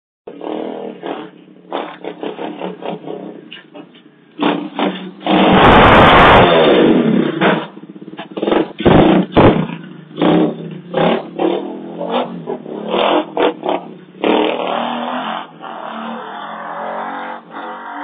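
Small motorbike engine running and revving in short, uneven bursts, with a loud crashing noise about five seconds in, the loudest moment, and a steadier run near the end. Heard through a security camera's thin microphone.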